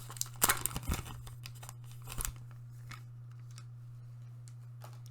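Foil booster pack wrapper being crinkled and torn open in a run of sharp crackles over the first second or so, with a few more crackles a little past the two-second mark. A few light rustles and ticks follow as the cards are handled, then only a steady low hum.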